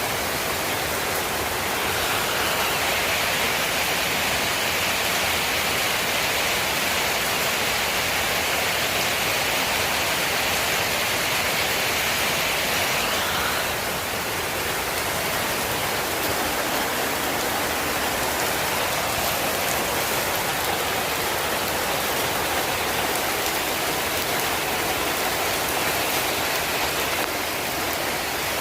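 Steady rainfall hissing. A brighter, higher hiss joins about two seconds in and cuts off suddenly about thirteen seconds in.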